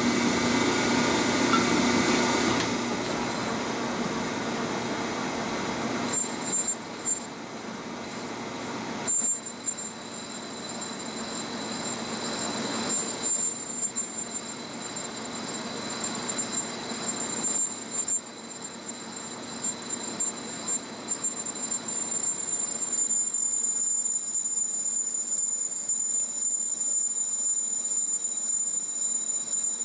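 Monarch metal lathe running while a Woodruff key cutter, used as a turning tool, cuts a bevel on the back side of a turbo exhaust housing. A thin high-pitched squeal from the cut comes in briefly about six seconds in, then holds steady from about nine seconds on over the running of the machine.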